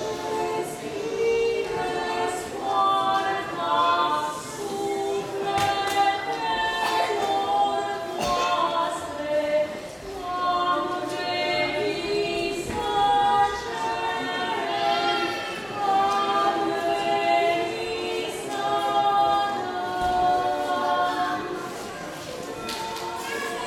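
Two women singing a Romanian Christmas carol (colindă) together, unaccompanied, in long held notes.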